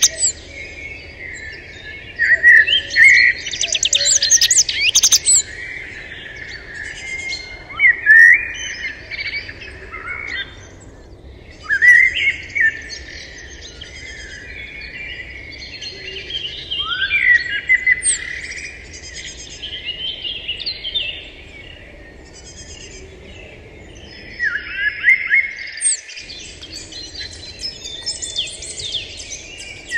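Birds chirping and calling in bursts of quick rising and falling notes, a new burst every few seconds.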